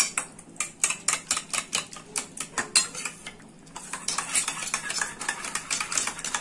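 Steel spoon stirring sour curd in a small stainless steel bowl, clinking against the bowl's sides about four or five times a second, with a busier run of scraping and clinking from about four seconds in.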